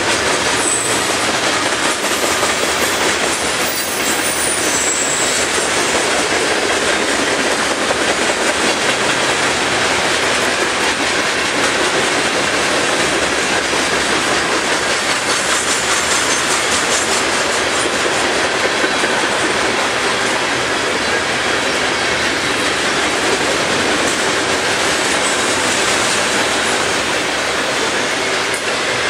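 Loaded covered hopper cars of a freight grain train rolling past close by: a steady run of steel wheels on rail clicking over the joints, with a few brief high wheel squeals in the first five seconds.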